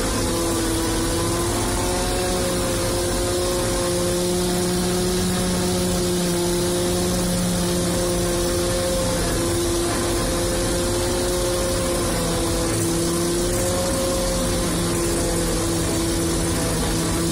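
Fortschritt E-281 self-propelled forage harvester running under load while chopping standing maize, heard from inside its cab. The engine and chopping gear make a steady drone with a whine that wavers slightly in pitch, over a constant hiss.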